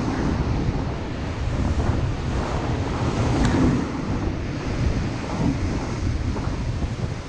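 Whitewater of a big river rapid rushing and churning around a raft, with wind rumbling on the microphone. A brief sharp click comes about three and a half seconds in.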